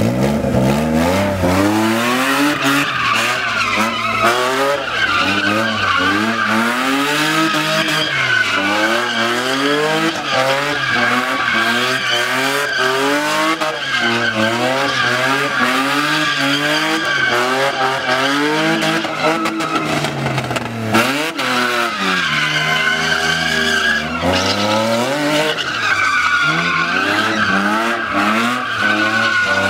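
BMW E36 3 Series drifting in tight donuts, its engine revving up and down again and again as the throttle is worked, over continuous tyre squeal from the spinning rear wheels.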